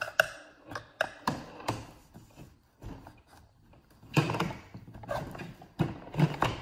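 Steel screwdriver shafts knocking and scraping against a plastic fan impeller and blower housing as the fan is pried from both sides. A few sharp clicks come in the first two seconds, then a louder stretch of rubbing and knocking about four seconds in, and a couple more knocks near the end.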